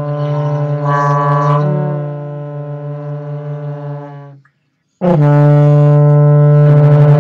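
Trombones holding a long, steady low F together. The note stops about four and a half seconds in and starts again louder half a second later.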